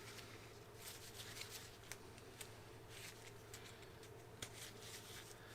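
Faint scattered clicks and rustles of hands working a new seal into the groove of a hydraulic cylinder piston with a seal-insertion tool, over a low steady hum.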